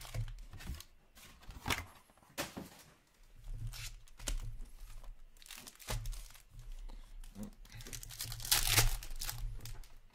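Foil hockey card packs being torn open and their wrappers crinkled, in a series of short rustling bursts, the loudest a little past eight seconds in.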